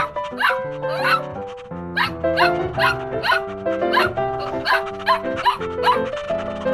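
Bouncy background music with puppy yips repeating about twice a second in time with the beat.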